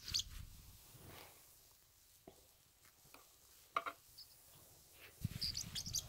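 Pet parrotlet making a few soft, short high chirps among faint scattered clicks and taps. The chirps cluster near the end, where a low rustling rumble also sets in.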